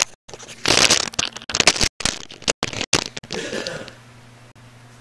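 Rustling and scraping handling noise close to the microphone as a person gets up and moves away, broken by a few brief audio dropouts. About four seconds in it gives way to a faint steady low hum of room equipment.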